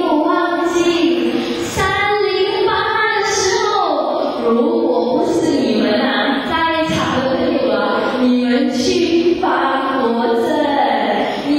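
A woman singing a song into a handheld microphone, holding long notes and gliding between pitches.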